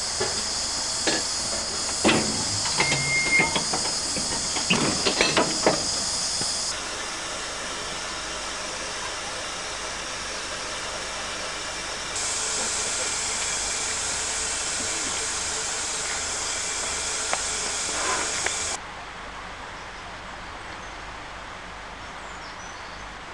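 Steam hissing steadily from the 15-inch gauge steam locomotive River Mite as it stands at the platform, with a run of sharp knocks and clanks in the first few seconds. The hiss cuts off abruptly about seven seconds in, comes back about twelve seconds in, and stops again about nineteen seconds in.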